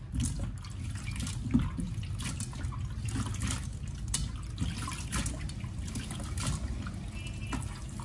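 Water splashing and dripping as hands squeeze wet king oyster mushroom pieces and drop them into a metal bowl in a stainless steel sink, in irregular short splashes.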